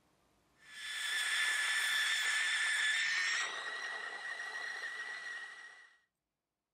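Small gas torch hissing with a steady high whistle as it heats the propeller hub so the solder flows. It starts about half a second in, drops a little in level about halfway through, and cuts off suddenly near the end.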